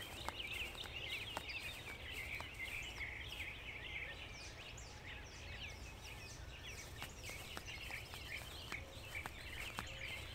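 Many birds chirping in a dense, continuous chorus of short high calls, over a faint low outdoor rumble with a few soft ticks.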